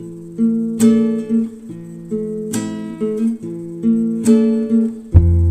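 Background music: acoustic guitar with a strummed chord about every second and a half, and a deep bass coming in near the end.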